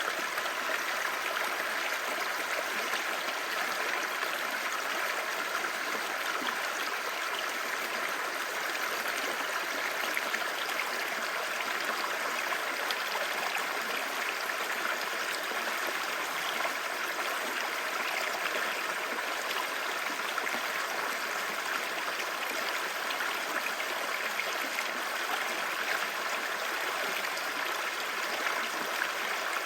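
Clear stream babbling steadily, an even rush of running water with no let-up.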